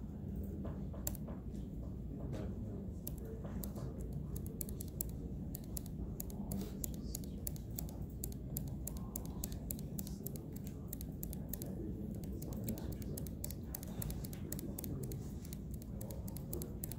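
Typing on a computer keyboard: quick, uneven key clicks, coming thicker in the second half, over a steady low room hum.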